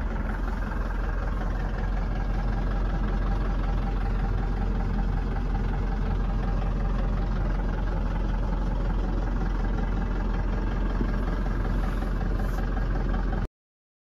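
Force Traveller van's diesel engine idling, heard inside the cabin as a steady low rumble; it cuts off suddenly near the end.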